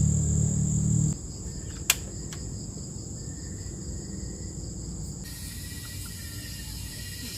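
Crickets chirring in a steady high-pitched chorus outdoors. Background music cuts off about a second in. A sharp click comes about two seconds in, with a fainter one just after.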